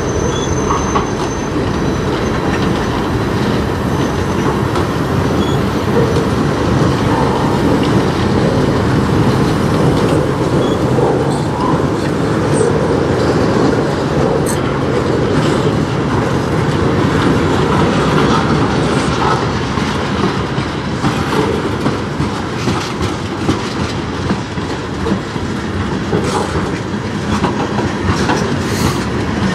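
Freight cars of a CN mixed freight train rolling past: a steady rumble of steel wheels on rail with rattling and clicking from wheels over rail joints, more clicks in the second half. A brief high wheel squeal near the start.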